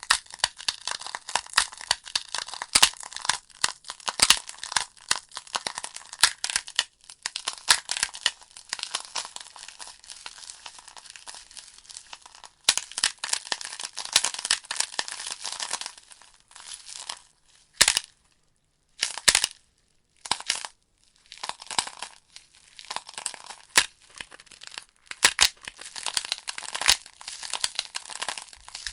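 Wood fire in a fireplace crackling steadily, with frequent sharp pops from the burning logs. Past the halfway point the crackle dies down to a few isolated pops for a few seconds before it picks up again.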